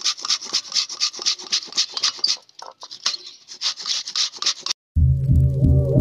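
A mango being grated on a stainless steel box grater: quick back-and-forth rasping strokes, about four or five a second, with a short pause midway. The grating cuts off near the end and music starts.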